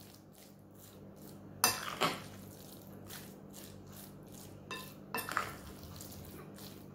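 Metal spoon stirring marinated raw chicken pieces in a glass bowl: a soft, wet mixing sound with a few clinks of the spoon against the glass, the loudest pair about a second and a half to two seconds in.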